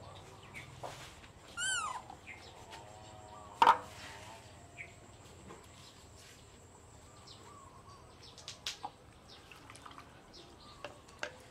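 Plastic baby bottle and cup handled on a table: a sharp knock a little under four seconds in, then light taps and clicks as the bottle is poured into the cup. A short high call about two seconds in and faint bird chirps sound in the background.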